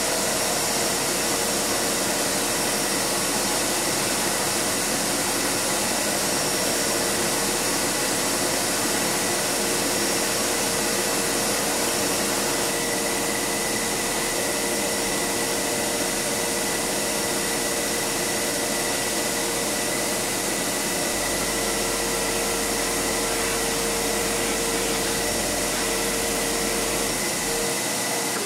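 Small bench grinder fitted with a buffing wheel, running steadily while an aluminium motorcycle part is pressed against the spinning wheel to polish it. The owner finds the grinder underpowered for this buffing work.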